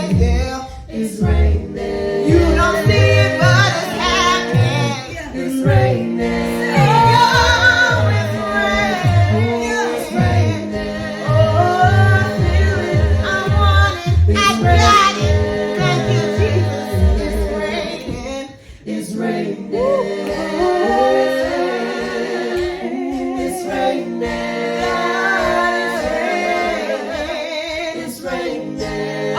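A cappella gospel praise team singing in close harmony, a female lead over layered voices and a pulsing sung bass line, with no instruments. The bass line drops away a little past halfway, leaving the upper voices.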